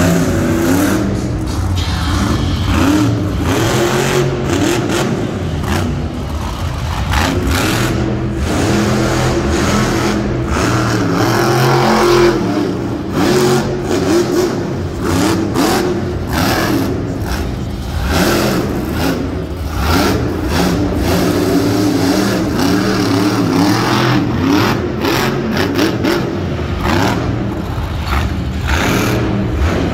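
Monster truck's supercharged V8 engine revving hard up and down again and again through a freestyle run, its pitch rising and falling repeatedly.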